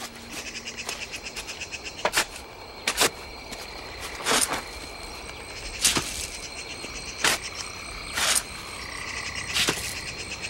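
A shovel biting into earth, a stroke every second or so, about eight strokes in all. Underneath is a steady night chorus of crickets and other insects trilling.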